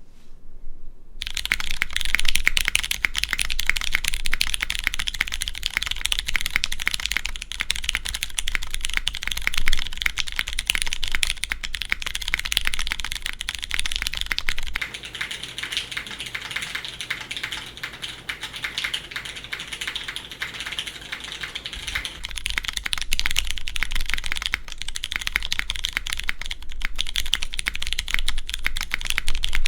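Continuous fast typing on a custom mechanical keyboard with lubed Cherry MX Clear tactile switches, a carbon fibre plate and GMK keycaps. The typing starts about a second in.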